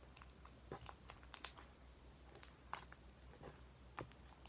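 Faint, irregular squelching and small popping clicks of slime being kneaded and squeezed by hand, the slime mixed with crushed makeup powder.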